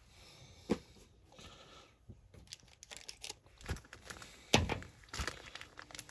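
Foil Pokémon booster pack wrapper crinkling and cards being handled, with a few sharp taps, the loudest about four and a half seconds in.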